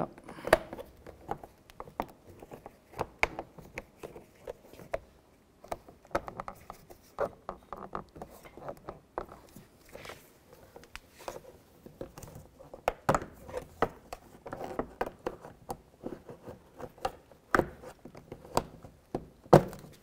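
Plastic interior door trim panel being pried off with a plastic trim tool: irregular clicks, knocks and short scrapes as the tool works under the edge and the panel's retaining clips let go.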